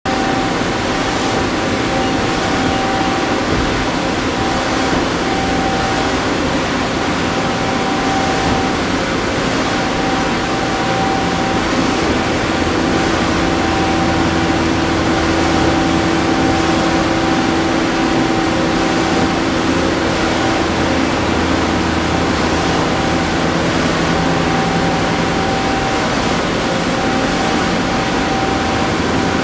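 Makino A51nx CNC horizontal machining center running: a steady mechanical whir and hiss with a high whine that cuts in and out, and a lower hum that comes in for a while in the middle.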